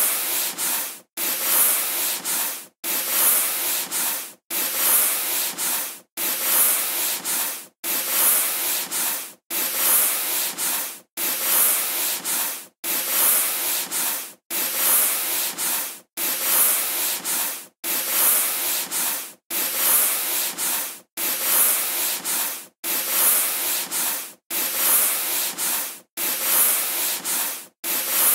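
A chalkboard eraser rubbing back and forth across a chalkboard, making a dry hiss. The strokes come in very regular pairs, about one pair every second and a half to two seconds, with a brief break after each pair.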